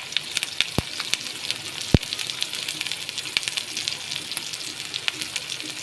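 Tempering sizzling and crackling in hot oil in a pan: mustard seeds, urad dal and onion, with freshly added curry leaves sputtering. Two light knocks come about one and two seconds in.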